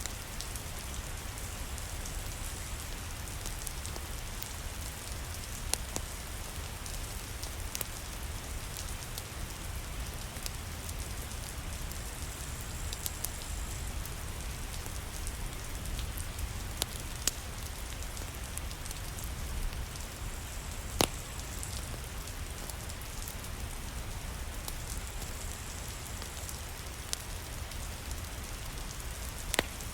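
Steady rain hissing over a low rumble, with scattered sharp pops and crackles from a wood fire in a fireplace.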